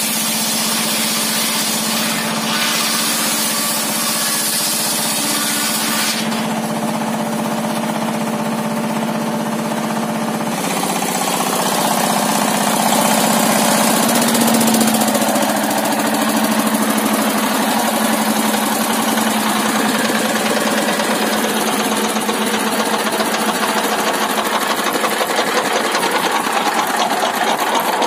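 Homemade table saw running, its circular blade ripping a large timber beam over the steady hum of its motor. The rasping changes about six and ten seconds in, then turns to a fast, even chatter through the second half.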